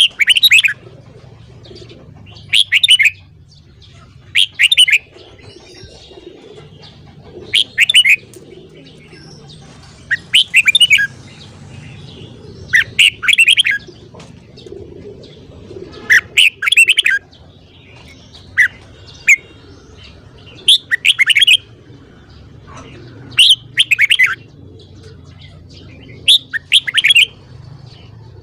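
Red-whiskered bulbul singing: short, loud, chattering phrases repeated every two to three seconds, over a faint low hum.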